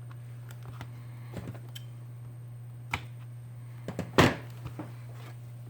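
Scattered light clicks and taps of small tools and parts being handled on a workbench during phone repair, with one louder knock a little past four seconds in, over a steady low electrical hum.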